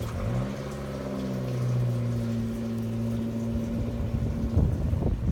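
A steady low mechanical hum that starts suddenly and holds. Gusts of wind buffet the microphone near the end.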